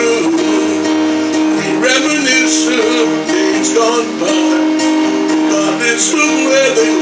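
A man singing live, accompanying himself on an acoustic guitar.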